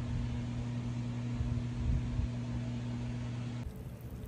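Steady mechanical hum with an even hiss, which stops abruptly about three and a half seconds in.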